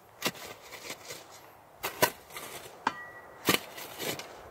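Shovel working loose dirt: about half a dozen sharp, irregular scrapes and knocks of the blade in the soil.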